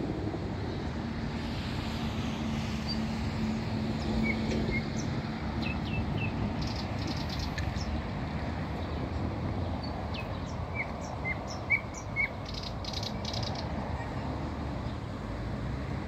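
Nightingale singing from a thicket: scattered short whistled notes, then a fast run of rapid repeated notes about six seconds in and again near thirteen seconds, over a steady low background rumble.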